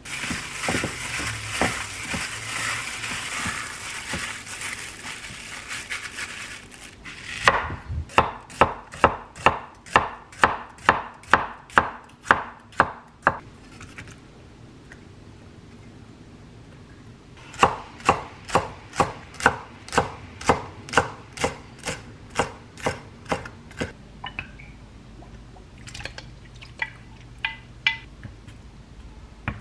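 Gloved hand squishing chicken thighs in marinade, a wet rubbing sound. Then a chef's knife chops onion on a wooden cutting board in two runs of steady knocks, about two a second, with a few lighter taps near the end.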